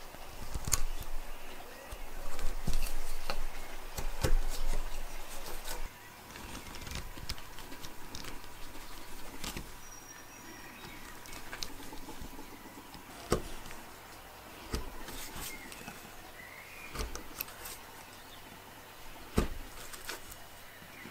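Hand-pushed wood chisel cutting into a log, with scraping cuts and scattered sharp clicks as wood chips break away.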